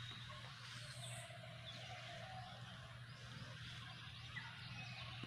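Faint outdoor ambience: scattered short bird chirps over a low, steady hum.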